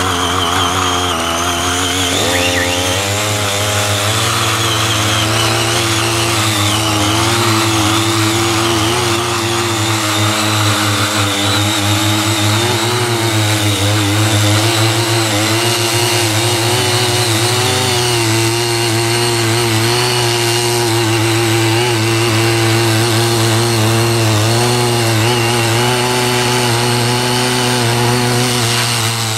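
Engine of a Ching Yee CY50 rotary garden tiller running steadily while it tills, its pitch wavering slightly.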